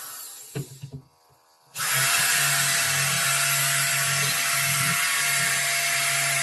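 Electric power tool running: it winds down and stops in the first second, with a couple of knocks, then starts up again sharply and runs steadily with a constant whine over a loud hiss.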